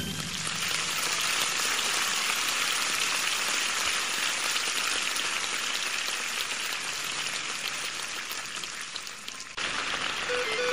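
Steady rain falling, an even pattering hiss with no music, which cuts off abruptly about nine and a half seconds in; guitar music starts again near the end.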